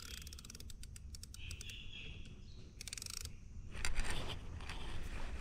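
A spinning fishing reel clicking rapidly in several short runs, with a brief high squeak in between, over a low steady rumble.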